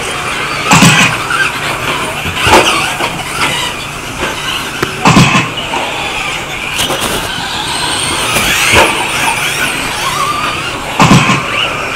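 Radio-controlled 2WD stadium trucks racing on a dirt track: a steady running noise with faint gliding whines, broken by several sharp knocks.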